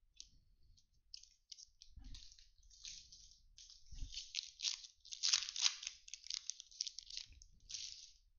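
Plastic wrapper of a Topps baseball card pack crinkling and tearing as it is ripped open by hand: a run of sharp crackles, loudest about five to six seconds in.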